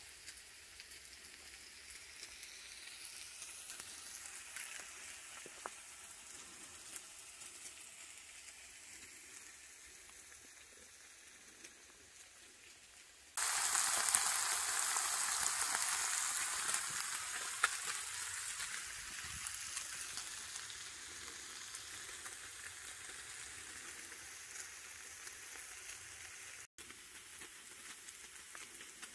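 Diced food frying in a pan on a camp stove: a soft hiss, then about halfway through a sudden, much louder sizzle that slowly fades.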